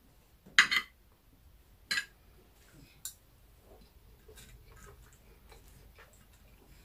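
Eating at the table: a metal spoon scraping and clinking against a plate while scooping rice and stew. There is one loud scrape about half a second in and sharp clicks near two and three seconds, followed by faint small clicks and taps.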